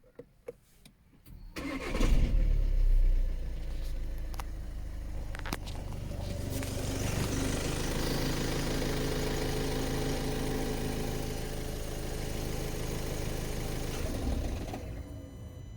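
A Skoda Octavia 2.0 TDI four-cylinder diesel engine starting about a second and a half in, with a loud surge on catching, then running steadily at idle; a few faint clicks come just before the start, and the engine sound fades away near the end.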